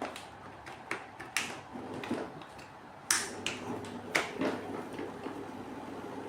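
Hands handling the fittings and hoses of a hydrogen generator: a run of sharp clicks and taps, the loudest two about three and four seconds in, over a steady low machine hum.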